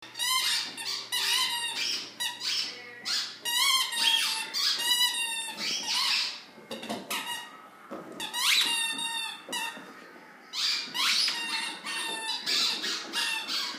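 A dog chewing a squeaky toy, setting it off in quick runs of short, high squeaks, with a couple of brief pauses.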